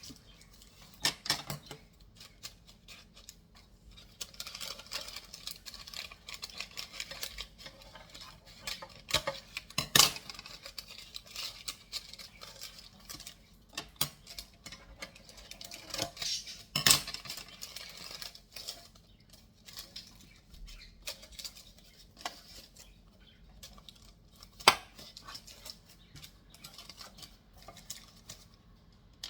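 Kitchen utensils and dishes clinking and tapping in scattered, irregular handling sounds, with a few sharper knocks: one about a third of the way in, one a little past the middle and one near the end.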